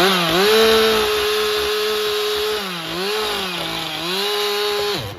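Two-stroke chainsaw at full throttle cutting into a standing bigtooth aspen trunk, its pitch sagging twice under load, then released and winding down near the end. The chain is dull from being run into the dirt.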